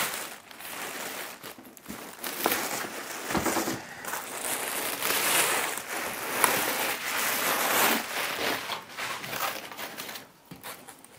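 Clear plastic wrap crinkling and rustling as it is pulled off the lamp, with scattered small clicks. The crinkling dies down about ten seconds in.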